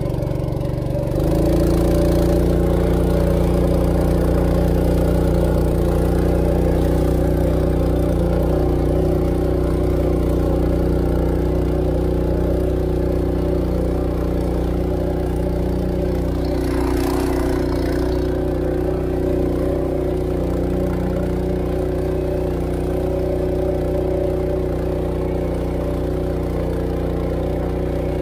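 Honda GX200 single-cylinder four-stroke engine driving a ketinting long-tail propeller on a wooden jukung boat. It is opened up about a second in and then runs steadily at full speed.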